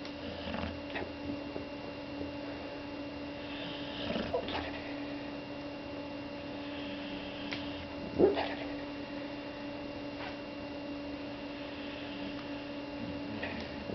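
Boxer dog snoring in slow breaths about four seconds apart, the loudest snort about eight seconds in, over a steady electrical hum.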